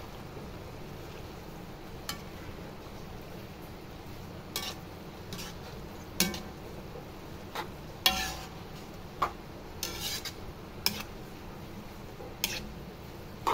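Metal spoon scraping and clinking against a pan while stirring rice noodles and vegetables: irregular strokes about a second apart, with one longer scrape about eight seconds in.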